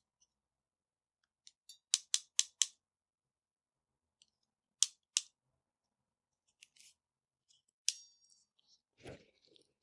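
Sharp clicks of a hand wire stripping and crimping tool working on wire ends: a quick run of four about two seconds in, two more around five seconds, and a few more later. A duller knock comes about nine seconds in.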